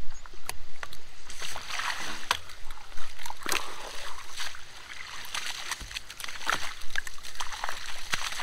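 Water splashing and spitting at a lay-flat irrigation hose's coupling on a sprinkler riser as hands twist the hose to work a kink out, with scattered clicks of handling.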